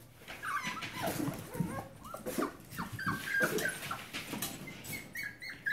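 Keeshond puppies whimpering and yipping in short high-pitched cries, coming more often in the second half, with light clicks and scuffles of play.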